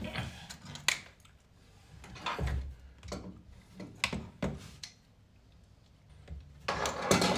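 Scattered clicks, knocks and scraping of plastic and metal parts being handled while a new drain pump's hose and hose clamp are fitted inside a washing machine, with a longer rustling scrape near the end.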